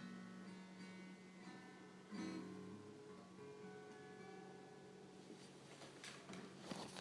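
Guitar chords strummed twice, at the start and about two seconds in, each left to ring and slowly fade, with a few faint clicks near the end.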